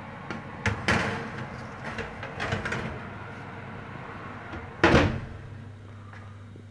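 Kitchen handling noise: a few sharp knocks and clatters, then one loud bang about five seconds in, like a door or cupboard shutting, over a steady low hum.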